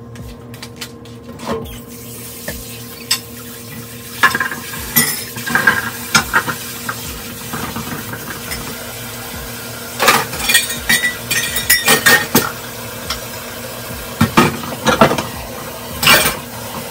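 Water running from a kitchen tap into a stainless steel sink while dishes and utensils are washed, with clinks and clatters in three bursts.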